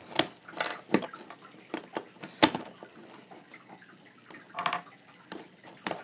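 Plastic speed-cube pieces clicking and knocking together as they are handled during disassembly, a handful of sharp irregular clicks with the loudest about halfway through.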